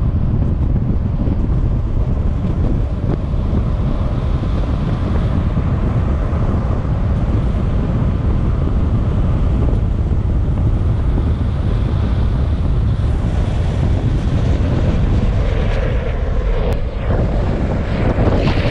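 Loud, steady wind rushing over an action camera's microphone at downhill-longboarding speed, mixed with the rumble of longboard wheels rolling on asphalt.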